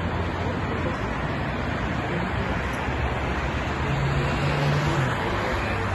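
Steady traffic noise from cars driving past on a multi-lane highway, swelling a little about four seconds in as a vehicle passes close.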